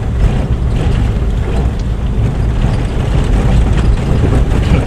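Car driving on a mountain road, heard from inside the cabin: a steady, loud rumble of engine and road noise.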